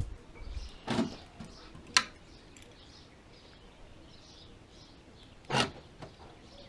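2003 Porsche Boxster's central locking being worked, with its lock actuators and the newly replaced fuel door release solenoid actuating: a short clunk about a second in, a sharp click at two seconds, and another clunk near the end, showing that the fuel door lock now works.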